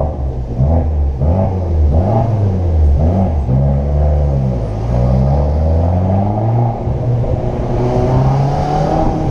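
Car engine revving and accelerating, its pitch rising and falling several times, then a longer rising pull near the end.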